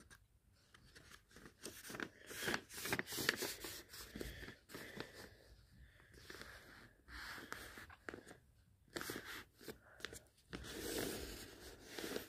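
A sheet of paper being folded into a triangle and creased flat by hand, rustling and crackling in irregular spells, busiest a couple of seconds in and again near the end.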